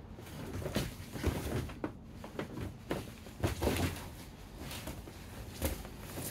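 Irregular thumps, scuffs and slides of two grapplers' bodies and bare feet on folding foam gym mats during a scramble, the heaviest knocks about a second in and again halfway through.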